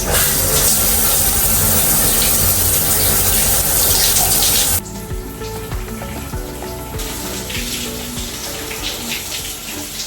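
Water running hard with a steady rushing hiss, turning quieter about five seconds in. Soft background music plays underneath.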